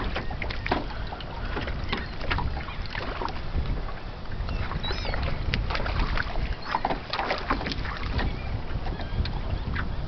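Wind buffeting the microphone and choppy water slapping against a small aluminum boat's hull in short irregular knocks, with a few brief high seabird calls about five seconds in.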